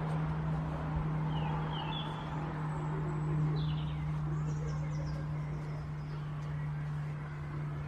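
Small birds chirping a few times, short separate calls, over a steady low hum.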